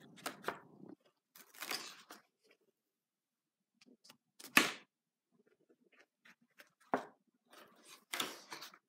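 Pages of a spiral-bound kraft-paper sketchbook being handled and turned: a few separate paper rustles and swishes, the loudest about four and a half seconds in, with small taps and clicks between.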